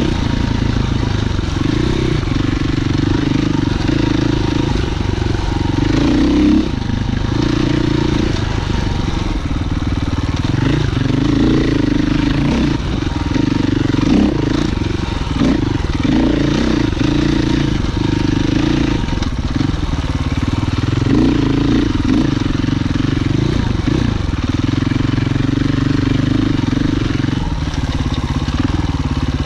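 Husqvarna FE 501's single-cylinder four-stroke engine being ridden on trail, its pitch rising and falling with the throttle, with a brief drop about six and a half seconds in.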